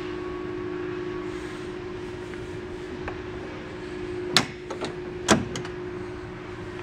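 A steady low hum, with two sharp knocks about four and five seconds in and a few fainter clicks around them.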